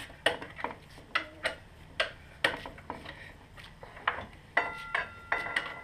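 Metal hand tools clicking and tapping against the front axle and fork of a Suzuki GSX-R race bike during a front wheel removal, irregular sharp clicks two or three a second. Near the end come a couple of ringing metallic clinks.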